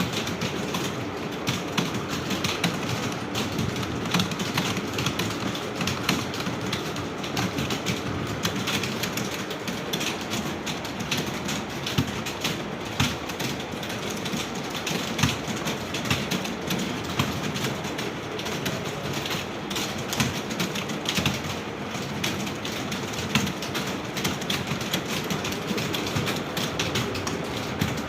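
Many computer keyboards being typed on at once: a dense, continuous clatter of keystrokes from a room full of typists.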